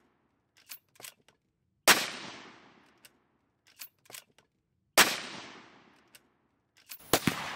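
Two shots from a CZ 527 carbine, a bolt-action rifle in .223 Remington, about three seconds apart, each followed by a fading echo. Between the shots and again near the end come short clicks of the bolt being worked to chamber the next round.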